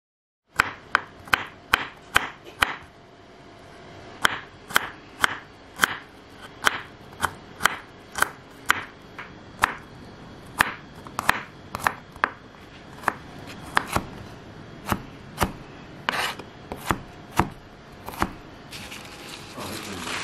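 Knife chopping garlic cloves on a wooden cutting board: a steady run of sharp taps, quicker at the start, then about two a second. A rustle near the end.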